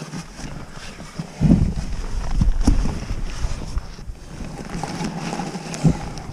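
Wind buffeting the microphone in uneven gusts, with a strong gust about a second and a half in, and a few scattered knocks and a thump near the end.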